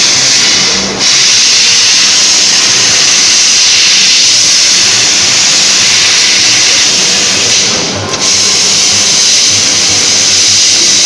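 CO2 laser cutting machine cutting metal: a loud, steady hiss of assist gas at the cutting head. It breaks off briefly twice, about a second in and about three seconds before the end, as the head pauses between cuts.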